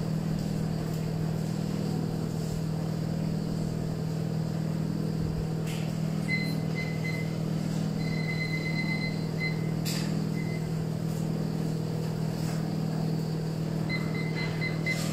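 Portable stove running steadily under a double boiler of water, a low even hum or rumble while marshmallows and butter melt in the bowl above. Faint thin high tones come and go about six seconds in and near the end, with a few light clicks.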